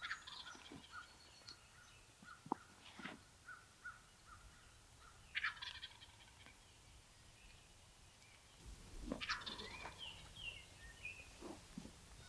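Wild turkey tom gobbling twice, once about halfway through and again a few seconds later, each gobble a short rattling call.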